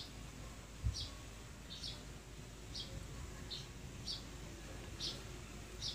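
A small bird chirping, one short high chirp about once a second, with a dull low thump about a second in.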